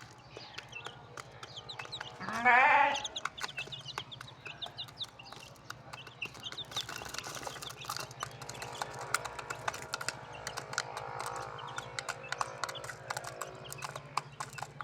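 Chicks cheeping, many small high peeps throughout, with scattered light clicks. A little over two seconds in comes one loud, wavering bleat-like animal call lasting under a second.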